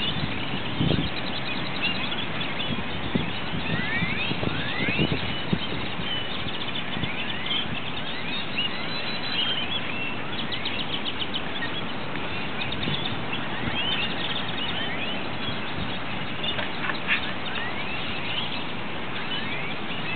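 A chorus of many purple martins calling in flight as they gather to roost, a constant stream of short chirps and sliding notes over a steady background hiss.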